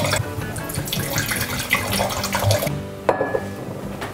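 Red wine poured from a glass bottle into a stemmed wine glass, a steady splashing pour that stops a little under three seconds in. A single sharp knock follows shortly after.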